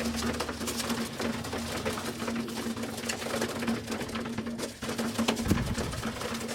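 Pigeons pecking at grain, a rapid, irregular patter of small taps, over a steady low hum.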